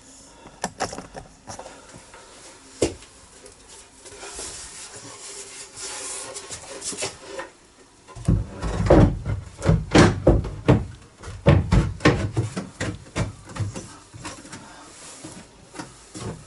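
A wooden worktop being manoeuvred and knocked into place: scattered light clicks and scrapes, then from about halfway a run of heavy wooden knocks and thumps.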